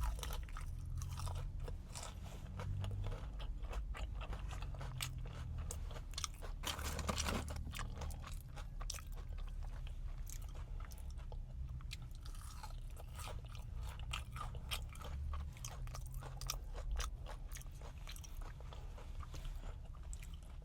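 A person chewing and crunching extra-crispy fried food, a quick irregular crackle of bites and chews, densest about seven seconds in.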